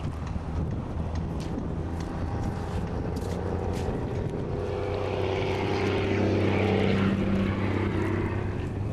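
A motor's steady droning hum that swells to its loudest about six to seven seconds in and then eases off, like an engine passing by, over a wash of wind.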